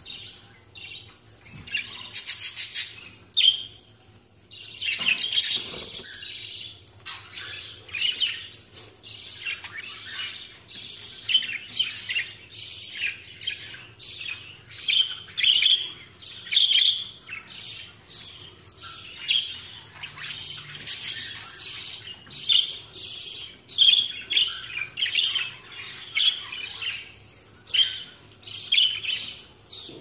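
Several caged budgerigars chattering: a steady stream of short, high-pitched chirps and squawks.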